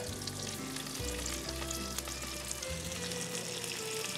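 Fingerling potatoes, whole garlic, rosemary and prosciutto frying in olive oil in a sauté pan: a steady sizzle as the garlic browns.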